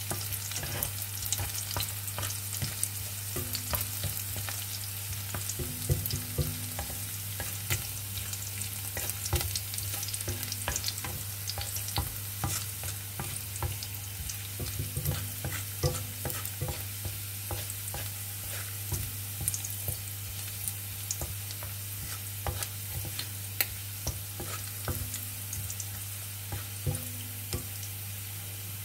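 Chopped garlic sizzling in hot oil in a non-stick kadai, stirred with a wooden spatula that clicks and scrapes against the pan many times. This is the garlic being fried until it turns a little brown. A steady low hum runs underneath.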